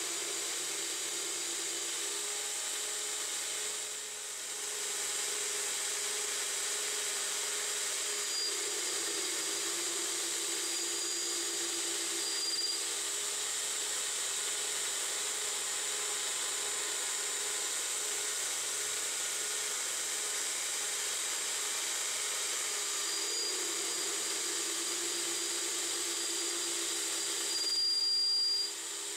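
9x20 benchtop CNC lathe running, its boring tool cutting inside the bore of a metal bearing adapter: a steady machine hum under a constant hiss. A thin high whine from the cut comes in twice, and the sound swells briefly near the end before dropping off.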